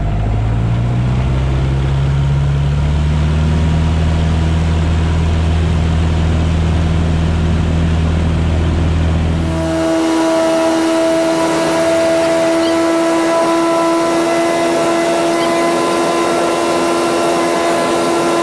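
Cessna 150's four-cylinder engine and propeller going to full power for the takeoff roll: a loud low drone that rises in pitch over the first second or two, then holds steady. Nearly ten seconds in it cuts abruptly to a steady, higher-pitched engine drone heard inside the cabin.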